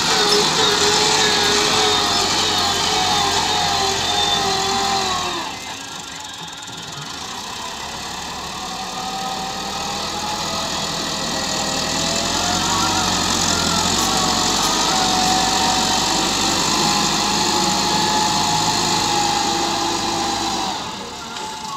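Massey Ferguson 385 diesel tractor engine working hard under load as it pushes sand with its front blade. The engine note rises and falls, and dips briefly about five seconds in.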